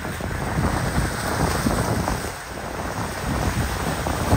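Wind buffeting the microphone in irregular gusts over the rush of waves and churned water.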